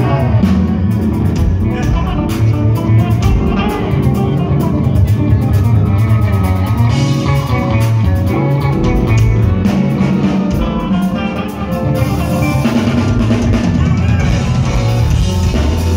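Live band music: electric guitar played over a drum kit, loud and full in the low end.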